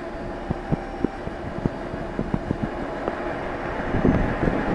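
Tenryū Hamanako Railroad diesel railcar idling at the station platform, a steady engine hum, with irregular short low thumps of wind buffeting the microphone.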